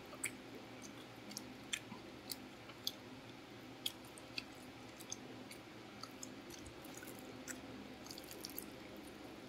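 Faint eating sounds: scattered small wet clicks and squishes, irregular and about a dozen in all, as rice and cassava-leaf gulai are mixed by hand and chewed.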